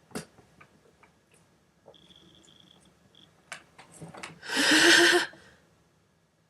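A woman sneezing once, loud and about a second long, about four and a half seconds in. Before it come a few short sniffs and clicks of the nose and mouth, and a faint high whistle.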